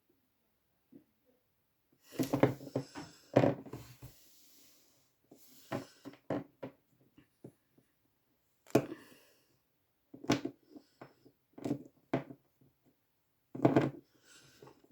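Handmade Plus-Plus plastic-piece fidget spinners clicking and clattering in short bursts, several times, as they are handled and spun.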